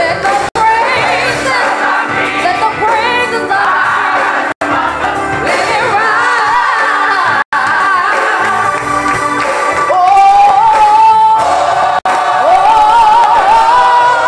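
A women's gospel choir singing, with one voice standing out above the rest from about ten seconds in. The sound cuts out for an instant four times, dropouts in the recording.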